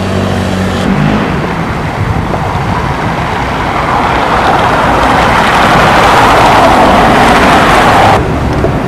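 Street traffic: a motor vehicle running close by, its noise building up over several seconds, then cutting off suddenly near the end.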